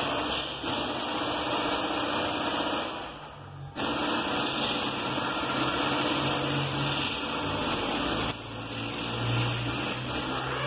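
Hot water poured in a stream from an aluminium pot into a filter cone of coffee grounds, a steady splashing pour with a short break about three seconds in.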